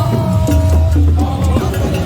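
Loud music with a heavy bass, a held melody and light percussion hits.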